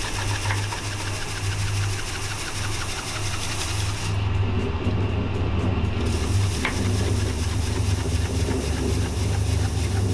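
Tanabe Willtec CS113 basket centrifuge running on its belt drive: a steady low mechanical hum, with a light regular ticking, about five a second, in the first few seconds and a single click midway.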